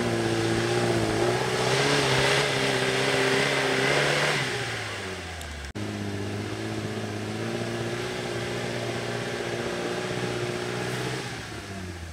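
Lada Niva engine held at high revs under load on a steep climb, its pitch falling away about four seconds in. After a sudden break about six seconds in, it revs high and steady again and eases off near the end, labouring with too little power for the slope.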